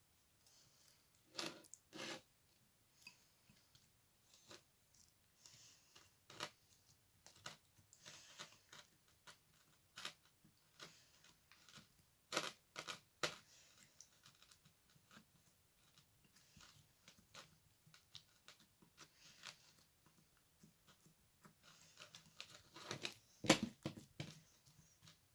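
Slime being squeezed and stretched by hand: faint, scattered sticky clicks and crackles, with a louder cluster of pops near the end.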